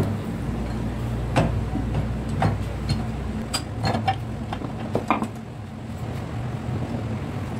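Steel gears and synchro rings of a Hino truck gearbox mainshaft clinking and tapping against each other as they are fitted by hand: about eight short metallic clinks at irregular intervals over a steady low hum.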